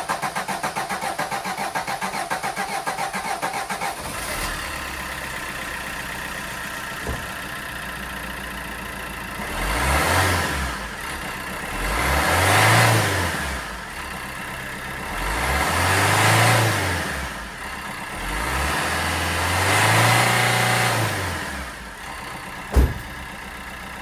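Peugeot Bipper's 1.3 HDi four-cylinder diesel cranking on the starter with a rapid even pulsing for about four seconds, then catching and idling. It is revved four times, each rise and fall of engine speed clear, running on freshly fitted injectors that cure its diesel knock. A single sharp clack near the end.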